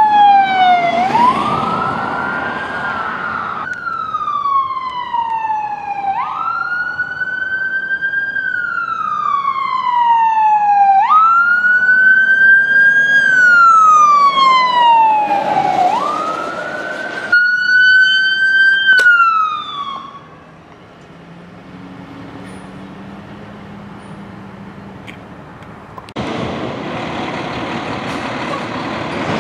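Emergency vehicle electronic sirens on wail: each cycle rises sharply and falls slowly, about every five seconds, heard across several short clips. The siren stops about two-thirds of the way through, leaving a low rumble. Near the end a louder steady rush of a fire truck's engine comes in.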